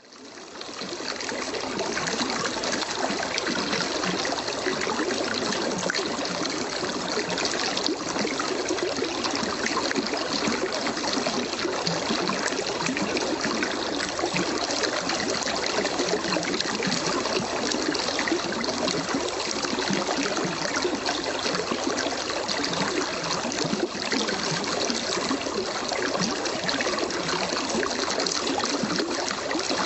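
Babbling brook: shallow running water trickling and splashing in a steady, unbroken rush that fades in over the first second.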